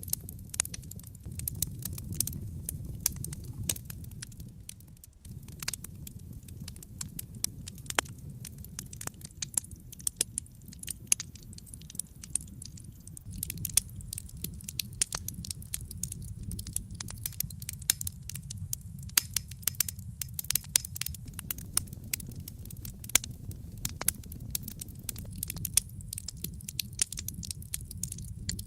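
Wood fire burning in a fireplace: a steady low rumble of flames with constant irregular crackling and sharp pops from the burning logs, easing briefly about five seconds in.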